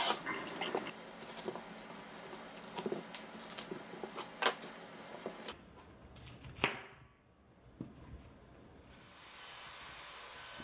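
A chef's knife chopping cauliflower on a plastic cutting board: a run of knocks and taps as the blade strikes the board through the florets, thinning out after about five seconds. A single knock follows, then only a faint steady hiss.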